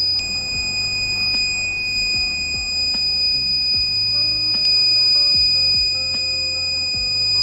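Electronic alarm buzzer sounding one steady, high-pitched continuous tone: the clock's alarm going off. Background music with a steady beat plays under it.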